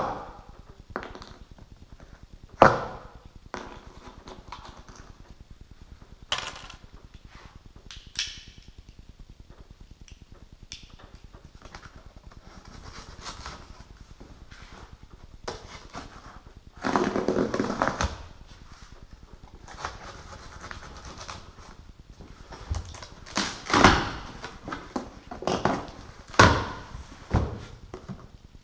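A cardboard shipping carton being opened with a knife: scattered sharp knocks and taps on the box, a rough rasping tear lasting about a second midway, and a cluster of rustles and knocks near the end as the flaps are folded open.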